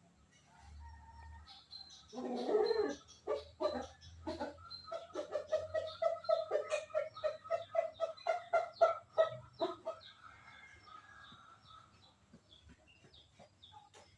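A bird giving a loud harsh call, then a fast run of repeated clucking notes, about three or four a second, for several seconds before it stops.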